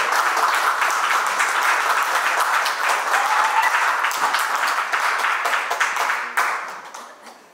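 Audience applauding with dense clapping, which dies away in the last second or so.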